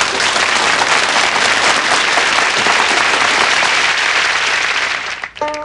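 Studio audience applauding steadily, dying away about five seconds in as plucked-string music comes in.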